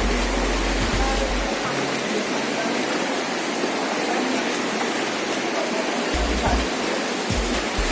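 Floodwater rushing steadily, a loud, even hiss of moving water.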